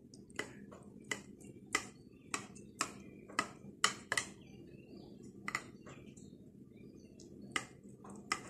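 Kitchen knife cutting through set egg barfi in a glass baking dish, the blade clicking against the glass in short sharp taps, about two a second for the first four seconds, then a few more spaced out.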